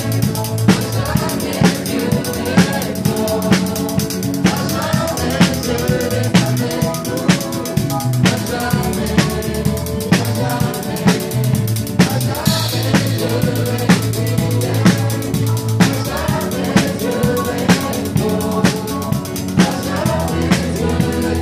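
Live band playing a praise song: a drum kit close by keeps a steady beat with kick, snare and cymbals, over keyboard chords and deep bass notes.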